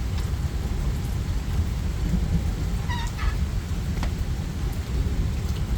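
Steady rain with a continuous low thunder rumble. About three seconds in, a brief high animal call of under half a second sounds over the storm.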